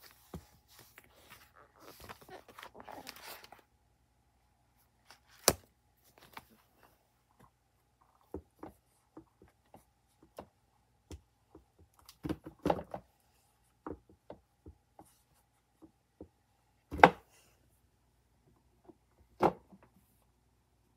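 Handling noise: a brief rustle, then scattered soft taps and knocks, with a few louder thumps spread through, as a book and the recording phone are moved about.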